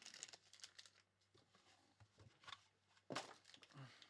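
Faint crinkling and tearing of trading-card pack wrappers being opened by hand, with a louder rustle about three seconds in.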